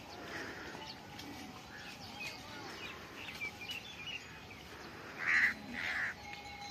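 Birds chirping and calling over outdoor background noise, with two loud calls close together near the end.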